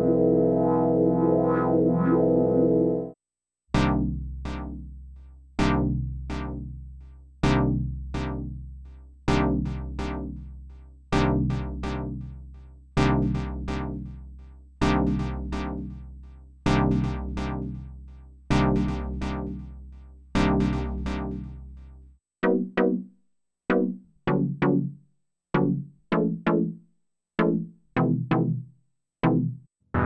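Dave Smith Evolver synthesizer playing a held chord that cuts off about three seconds in. A sequence of decaying chord stabs follows, about one every two seconds, then shorter, quicker stabs in an uneven rhythm for the last several seconds.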